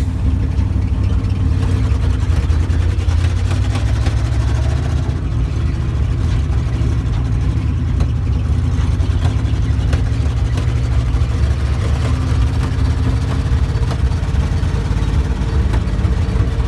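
A carburetted vehicle engine running steadily on a test drive: a loud low drone with scattered brief pops. The engine is coughing, from a carburettor with a leak.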